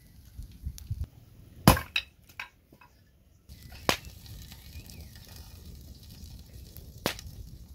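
Wood and pine-cone fire crackling: a few sharp snaps and cracks, the loudest about a second and a half in, then a low steady rush of flames with two more sharp pops.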